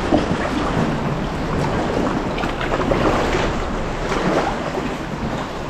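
Sea water lapping and splashing around a kayak inside a sea cave, with scattered paddle splashes and a low rumble of wind on the microphone.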